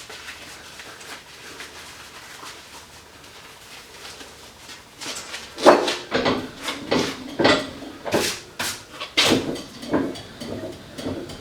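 Work gloves being pulled on with a faint rustling, then a quick run of knocks and clatters from hard objects being handled.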